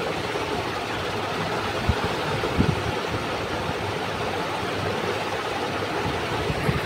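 Steady background noise, an even rushing hiss with a low hum under it, with a few soft low knocks about two and two and a half seconds in and again near the end.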